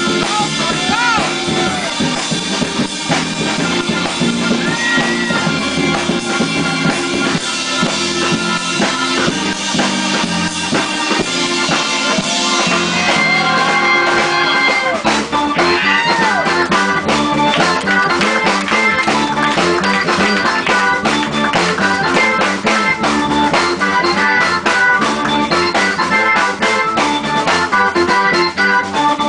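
Live jazz-fusion band playing: electric bass guitar, drum kit and organ-toned keyboard, with a woodwind among them. The drums grow busier about halfway through.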